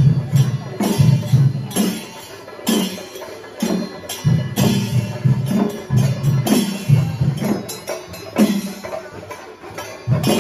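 Temple festival percussion ensemble drumming a loud, driving rhythm for the procession, with sharp strikes over deep drum beats and the beat easing off briefly a couple of times before picking up again.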